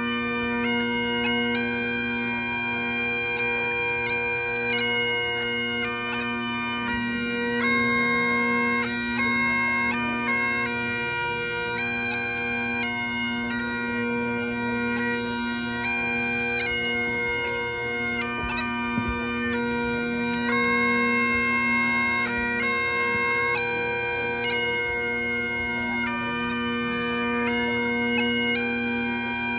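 Great Highland bagpipe playing a traditional tune: the drones hold one steady tone beneath the chanter's melody, which moves from note to note.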